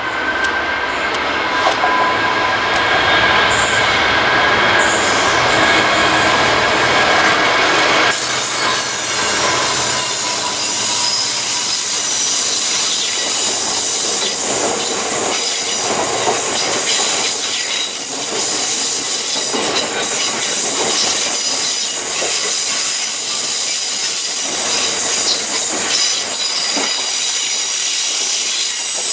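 GB Railfreight Class 66 diesel locomotive running through at speed and passing close by with a whine that rises slightly. From about 8 seconds in, a long rake of HYA hopper wagons rolls past, with steady rumbling, wheels clattering over rail joints and brief wheel squeals.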